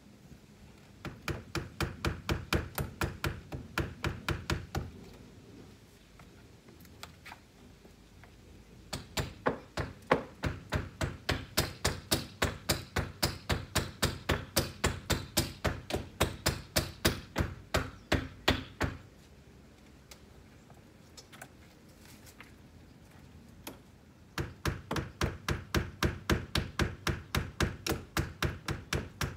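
Hammer driving nails into a window frame: three runs of quick, even strikes, about three a second, with short pauses between them.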